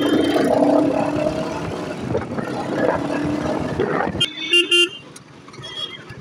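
Riding a Royal Enfield Hunter 350 in city traffic: the single-cylinder engine running under steady road and wind noise, with two short horn beeps in quick succession about four seconds in.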